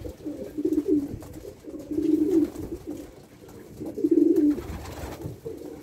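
Racing pigeons cooing in the loft: three low coos about two seconds apart.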